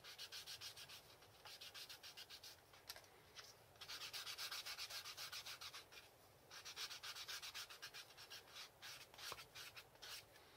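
Faint, rapid back-and-forth rubbing strokes by hand, in several runs separated by short pauses; the longest run falls in the middle.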